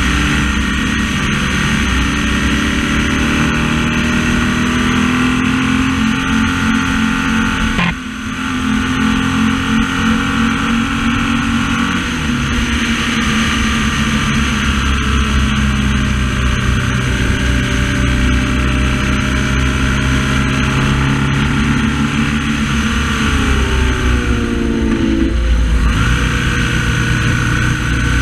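BMW R1200S boxer twin running at road speed, heard from a camera on the front mudguard, with heavy wind and tyre noise. The engine note rises and falls with the throttle, dips briefly about eight seconds in, and sinks then jumps back up about three-quarters of the way through.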